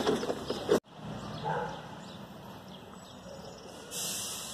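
Faint outdoor background with a brief animal call, distant, about a second and a half in; a soft hiss rises near the end.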